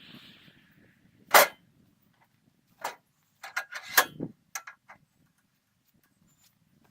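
A series of sharp knocks and clanks: one loud one about a second and a half in, a single knock a moment later, then a quick cluster of several around four seconds in.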